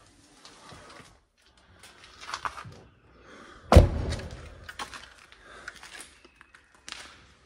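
An ambulance's cab door slammed shut about four seconds in: one heavy thump with a short echo. Scuffing and footsteps on debris come before and after it.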